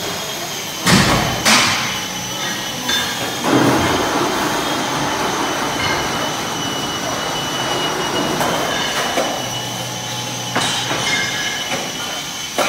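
Steady workshop machinery noise with a high whine, over which a heavy cast-steel piece on a crane hook makes two sharp metal clanks about a second in, then a long metallic rumble and scraping from about three and a half seconds in, and a knock near the end as it is set down on a steel workbench.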